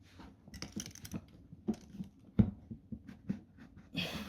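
Parts of an AVA pressure washer being handled and worked into place: a string of small clicks and knocks, one sharper knock about two and a half seconds in, and a short scraping rustle near the end.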